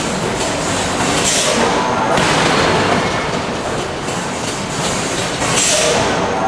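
Loud, continuous machinery noise from a steel forge shop working with hydraulic forging hammers, with clattering throughout and two brief hissy bursts, about a second in and near the end.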